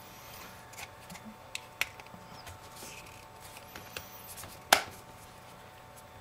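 An iPhone 5's screen assembly being pressed into its aluminum casing, its clips clicking into place: a few small plastic clicks and one sharper, louder snap about three-quarters of the way through.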